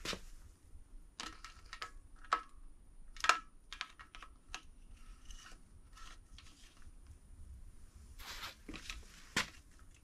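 Scattered light clicks and taps of metal engine parts and tools being handled, with a brief rustle about eight seconds in.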